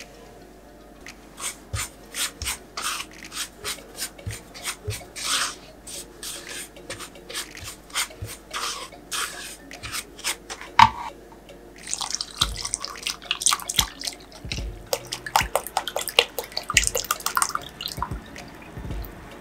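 A spatula scraping and tapping around a pot as dry flour, starch and sugar are stirred together, in a run of short strokes. About twelve seconds in, milk is poured in from a carton and stirred, adding a liquid splashing and sloshing under quicker strokes.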